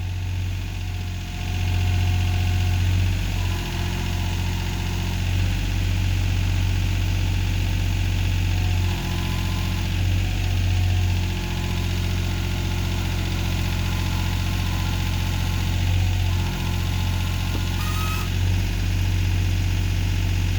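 John Deere backhoe's diesel engine running steadily at a constant speed, with a few slight dips in its note.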